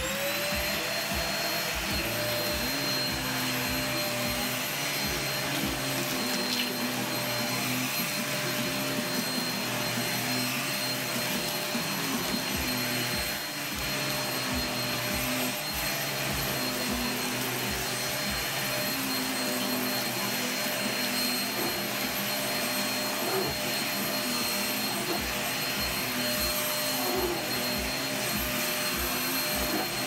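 Bagless upright vacuum cleaner switching on, its motor whine rising to speed at the start, then running steadily as it is pushed back and forth over carpet.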